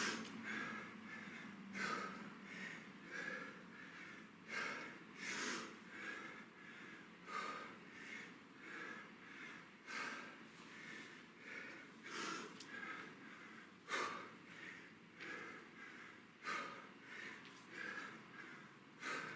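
A man breathing hard and rhythmically from exertion during a kettlebell workout: short, forceful breaths about twice a second, some of them sharper and louder.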